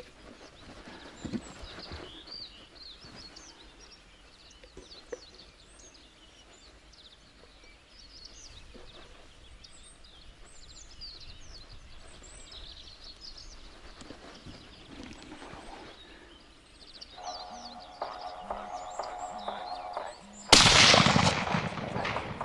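Small birds chirping in the open, then a phone ringing for about three seconds, then a single loud rifle shot from a hunting carbine near the end, its report trailing off over about a second.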